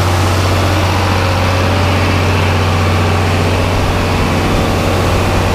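Tractor engine running at a steady speed with a constant low hum.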